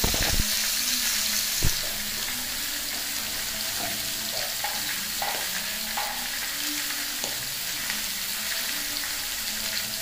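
Grass carp steaks sizzling steadily as they fry in hot oil in a steel kadai, with two sharp knocks in the first two seconds.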